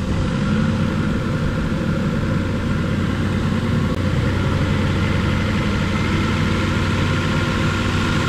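Nissan Frontier pickup's engine running steadily while air is bled out of its cooling system after a coolant top-up.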